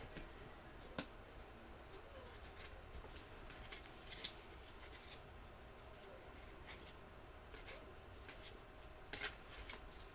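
Faint clicks and rustles of trading cards being handled and flipped through, with a sharper tick about a second in and a couple more near the end.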